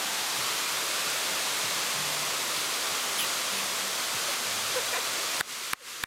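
Steady rushing of a waterfall, which drops away abruptly about five seconds in, followed by a couple of sharp claps near the end.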